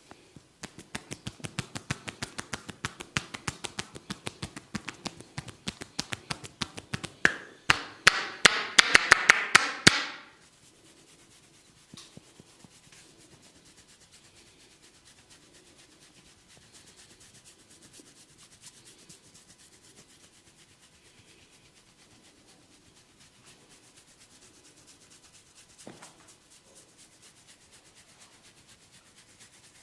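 Barber's hair cracking on a head massage: a fast run of sharp crackling snaps, about five a second, that grows louder until it stops about ten seconds in. After that, hands rub softly over the scalp, with one faint click later on.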